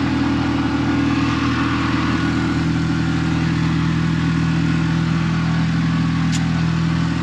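Tuk tuk's small engine running steadily under load on a long uphill climb, heard from inside the open cabin with a constant drone and road noise.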